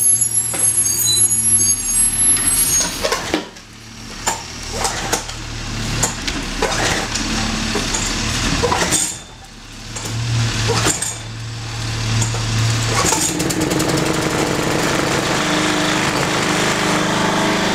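Small single-cylinder lawn mower engine of a Toro Super Recycler running close by with a rapid pulse, dipping sharply twice and picking back up. A garbage truck's engine runs in the background.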